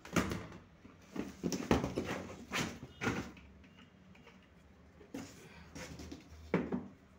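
Plastic supplement tubs knocking and bumping against each other and the cardboard box as they are handled and lifted out: irregular knocks and scuffs, bunched in the first three seconds and again near the end.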